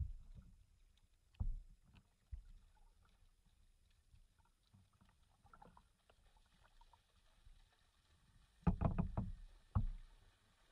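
Kayak being paddled: scattered paddle splashes and knocks against the hull, with a loud cluster of splashes and bumps near the end.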